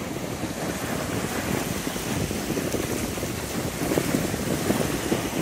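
Small surf waves breaking and washing in over shallow water on a sand beach, with wind rumbling on the microphone; the wash swells a little near the end.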